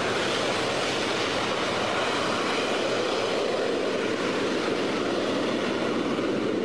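A Su-27 fighter's two jet engines on full afterburner during takeoff: a loud, steady rush of jet noise.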